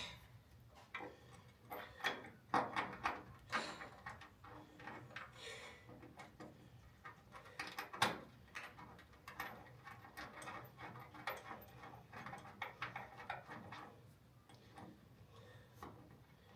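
Irregular metallic clicks, taps and knocks from fitting a bolt into the Jaguar Mk II's bonnet mounting by hand, with a sharper knock about eight seconds in.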